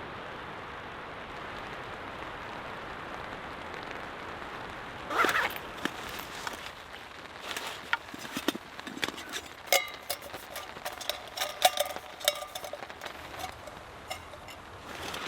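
Steady hiss of rain and wind in the forest, then from about five seconds in a run of irregular close taps, clicks and knocks over a quieter rain hiss.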